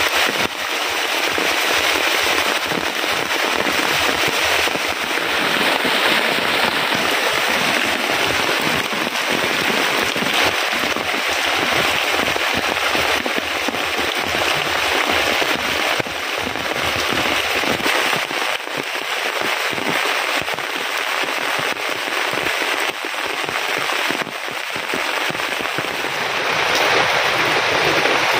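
Heavy rain falling steadily, a dense, even patter.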